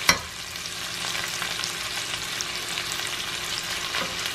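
Sliced sausage and onions sizzling and browning in a stainless steel skillet as they are stirred with a spoon: a steady hiss with small scattered pops. There is one sharp knock just after the start.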